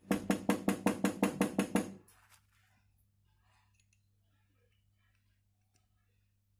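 Quick, light hammer taps on steel, about ten in two seconds at an even pace, seating keys into a Royal Enfield oil pump gear spindle that rests on a steel bar. They stop about two seconds in, leaving only a faint low hum.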